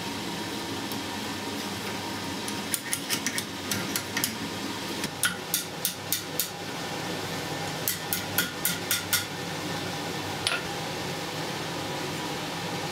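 Blacksmith's hand hammer striking iron on the anvil horn in three quick runs of about six or seven blows each, roughly four a second, then a single ringing blow near the end. A steady hiss runs underneath.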